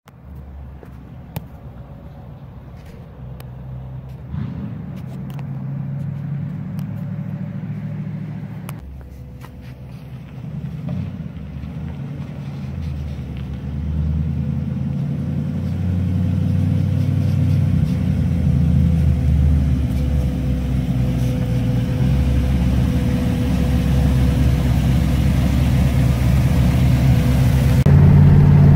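Engine of a 1954 Ford pickup truck running, from idle to driving along, growing steadily louder toward the end. There is a sharp click about a second in.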